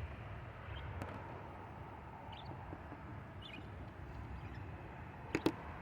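Budgerigars chirping faintly now and then over a low background, with a sharp double click about five seconds in.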